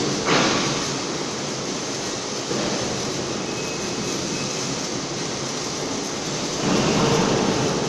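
Automatic hardfacing welding machine at work: a steady, dense hiss and crackle of the welding arc mixed with machine noise, growing louder for the last second or so.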